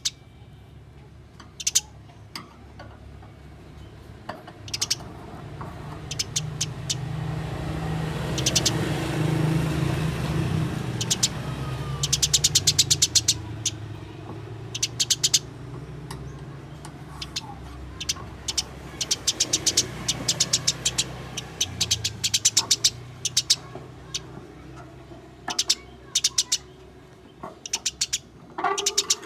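Eurasian tree sparrows chattering in repeated runs of rapid, sharp chirps, the agitated calls of sparrows fighting. A low rumble swells and fades through the middle.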